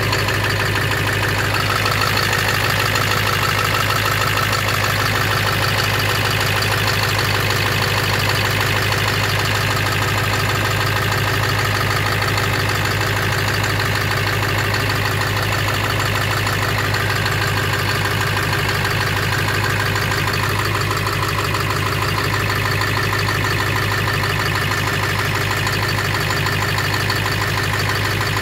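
Ford 7.3 PowerStroke V8 turbodiesel, fitted with a Holset HX50 turbocharger, idling steadily.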